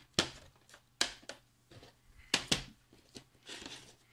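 Plastic DVD cases being handled: a string of sharp clicks and knocks, about seven in all, the loudest pair about two and a half seconds in, with a short soft rustle near the end.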